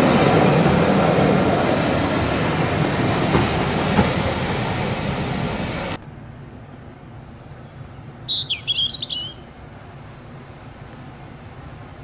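Railway passenger coaches rolling past, their wheels rumbling and slowly fading, cut off abruptly about six seconds in. A songbird then sings one short phrase about two seconds later, followed by a few faint chirps.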